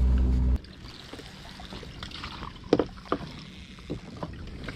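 A boat engine's steady low drone cuts off abruptly, leaving a quiet wash of water around the boat and a few sharp knocks.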